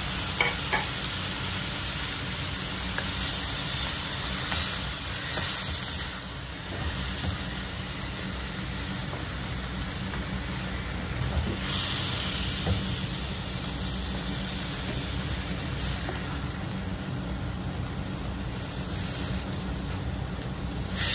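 Marinated pork belly cubes sizzling as they fry in a wok, stirred with a slotted spatula that scrapes and clicks against the pan now and then. The sizzle swells louder a few times as the meat is turned.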